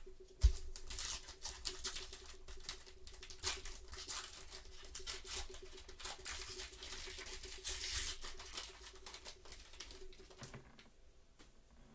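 Crinkling and rustling of a Gypsy Queen baseball card pack's wrapper being torn open, with cards handled in gloved hands: dense irregular crackles, with a sharp knock about half a second in.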